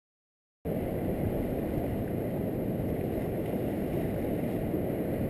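Steady low rumble of wind buffeting the camera microphone, starting abruptly a little under a second in.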